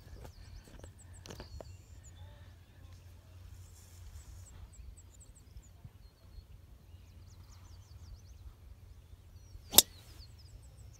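A driver striking a golf ball off the tee: one sharp, loud crack near the end.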